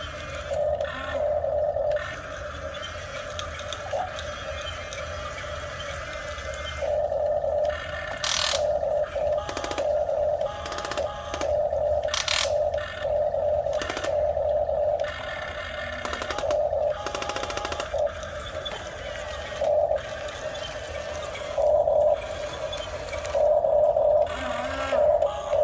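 Small electric gear motors of a toy RC excavator whining in short on-and-off spurts as its controls are worked, with a couple of sharp scraping noises.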